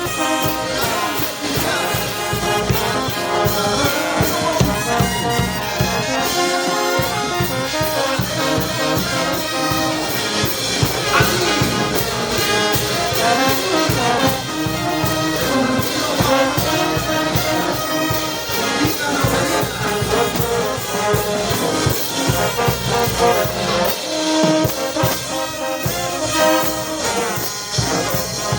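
Brass band playing, trumpets and trombones carrying the tune over a steady percussion beat.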